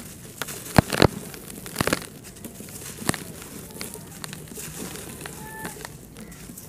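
Dry, dusty red dirt bar crunching and crumbling in the hands, with gritty crumbs pouring into a tub of dry dirt. A few sharp cracks come in the first three seconds, the loudest about a second in, then softer crumbling.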